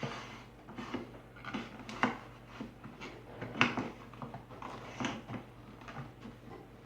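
Hard plastic knocks and clicks as the vintage Philips P74 canister vacuum cleaner's body and parts are handled and turned over. A few sharp knocks stand out, about two, three and a half and five seconds in, with lighter clicks between them.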